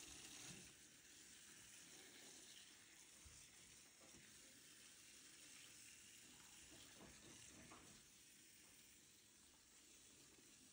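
Faint, steady hiss of water from a pull-down kitchen tap spray, rinsing white paint out of a paint tray and off brushes in a stainless steel sink.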